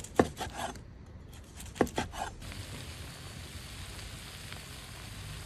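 Chef's knife cutting through crisp-skinned smoked pork belly and knocking on a wooden cutting board, in two quick runs of cuts. About two and a half seconds in, a steady sizzle of pork belly and jjajang ramen frying on a griddle pan takes over.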